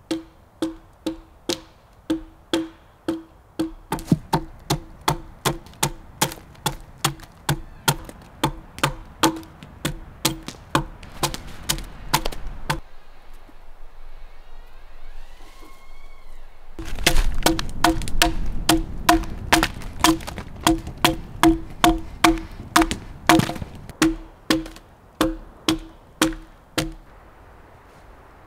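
Axe strokes into a large log being hewn, about two a second, each a sharp wooden knock with a short ring. They stop for a few seconds, when a bird calls briefly, then carry on at the same pace.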